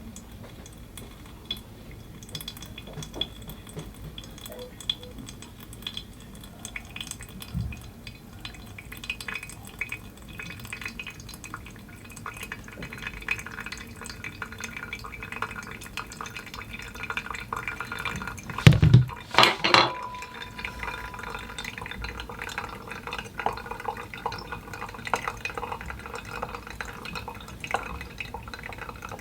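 Coffee being brewed by hand: a run of small drips, trickles and light clinks of glassware and utensils, with one louder clatter about two-thirds of the way through.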